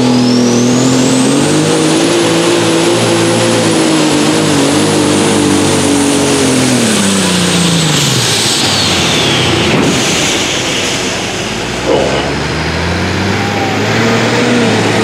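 Light super stock pulling tractor's turbocharged diesel engine running flat out under load, with a high turbo whistle over it. Around eight seconds in the engine and whistle wind down together as the pull ends, leaving the engine running low. There is a short loud burst near twelve seconds.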